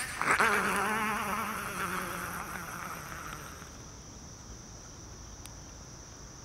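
A buzzing, insect-like drone with a fast wobble in pitch starts just after the beginning and fades away over about three seconds, leaving a steady high whine.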